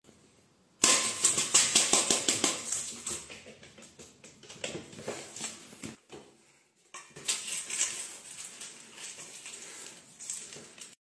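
Dry cat food clicking and rattling in a stainless-steel bowl on a tile floor: a fast run of clicks starts about a second in and fades, stops briefly about six seconds in, then resumes as a cat eats from the bowl.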